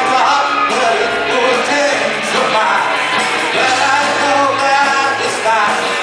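Live rock band playing, with a sung vocal line over guitars, bass and drums.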